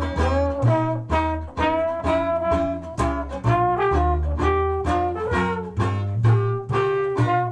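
New Orleans-style jazz brass band playing an instrumental passage: brass horns such as trombone carry the melody over a bass line moving about twice a second and a plucked banjo.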